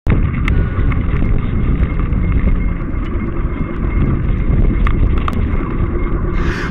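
Wind buffeting the microphone of a bicycle-mounted camera as the bike rolls along an asphalt path, with a few sharp rattles from the bike.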